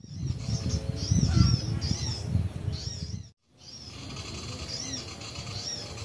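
Small birds chirping: high, arched chirps repeating over and over above a low rumble. The sound cuts out completely for a moment about three seconds in.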